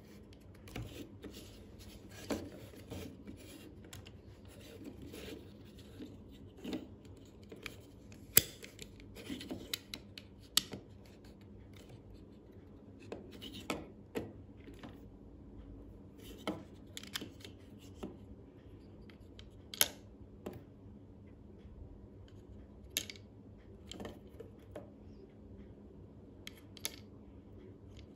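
Plastic Lego bricks being handled and pressed together: irregular sharp clicks and snaps with light rubbing and scraping of plastic between them, a few snaps standing out louder.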